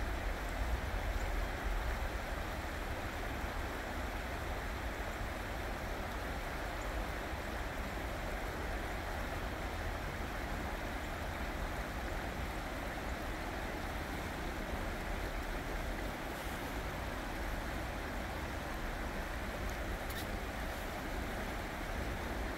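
Creek water flowing over rocks: a steady, even rushing, with a low rumble underneath.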